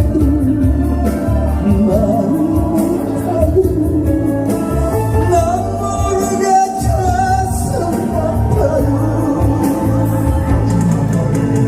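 Backing music of a Korean pop song during an instrumental interlude: a bending melody line over a steady bass.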